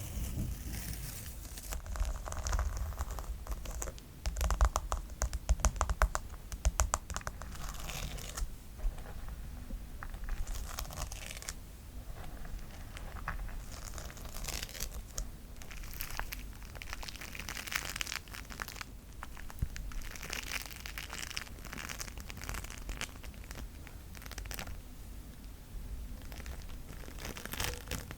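Close-miked ASMR trigger sounds, clicking and crinkling in quick runs. From about halfway on, slime mixed with beads is squeezed and pressed in repeated crackling bursts.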